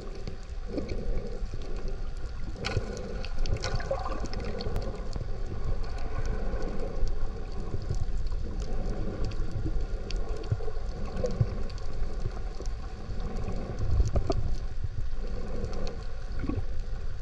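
Underwater ambience heard through a camera just below the surface: muffled water movement with a steady low rumble, broken by scattered clicks and crackles.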